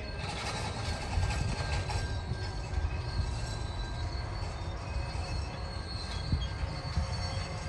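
Container wagons of a freight train rolling past: a steady low rumble of wheels on rail, with thin steady high tones of wheel squeal and a couple of sharp clunks near the end.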